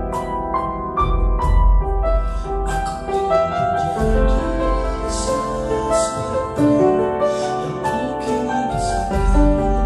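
Grand piano played solo: a melody over held chords, with deep bass notes struck every few seconds.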